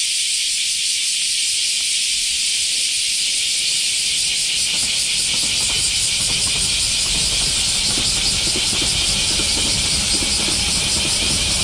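Cicadas singing in a steady, loud, high-pitched buzzing chorus. About halfway through, a low rumble comes in underneath and stays.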